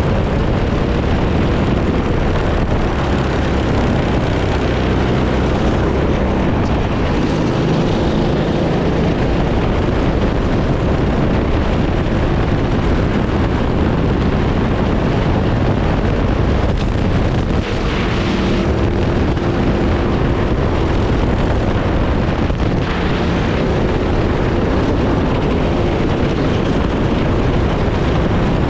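Racing kart engine running hard on track, heard from the onboard camera mounted on the kart, with wind noise over the microphone.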